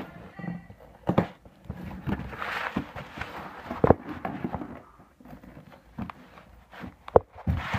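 A few sharp knocks and thumps, with a stretch of rustling about two to three and a half seconds in: handling noise close to the microphone.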